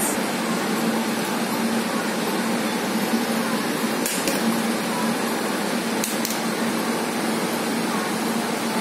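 Steady whooshing fan noise with a constant low hum from a running room air cooler, with a couple of brief faint clicks about four and six seconds in.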